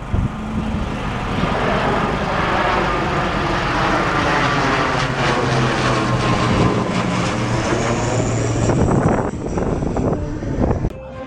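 A motor passing close by, a steady engine hum whose pitch slowly shifts as it goes past; it fades out just before the end.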